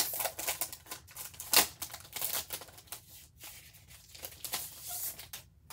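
Clear plastic packaging sleeve crinkling and crackling as a planner dashboard is slid out of it, with a sharp crackle about one and a half seconds in and quieter handling near the end.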